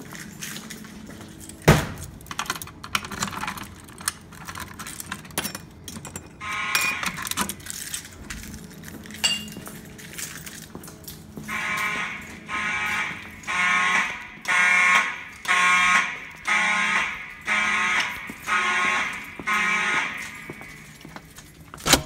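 Fire alarm horn sounding in even pulses, about one a second, starting about halfway through and stopping shortly before the end. Footsteps on a hard floor run throughout, with a sharp knock about two seconds in.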